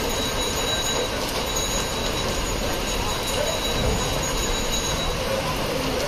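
Steady rain falling: a continuous, even hiss with no breaks.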